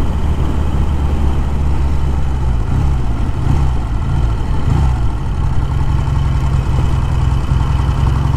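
1956 Triumph T110's 650 cc parallel-twin engine running steadily under the rider. Its pitch wavers a few seconds in, then settles again.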